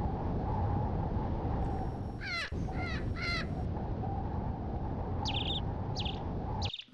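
A crow cawing three times in quick succession about two seconds in, each caw falling in pitch, over a steady rushing background noise. A few shorter, higher bird calls follow near the end.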